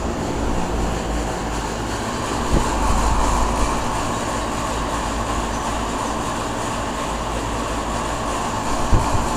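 Payne teardrop air-conditioner condensing unit running noisily, a steady mechanical hum with a rushing noise over it. Two brief knocks, one about two and a half seconds in and one near the end.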